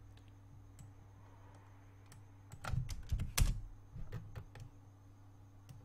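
Computer keyboard keystrokes: a few scattered clicks, then a quick cluster of sharper key presses about two and a half to three and a half seconds in, as a number is typed into a field. A steady low hum runs beneath.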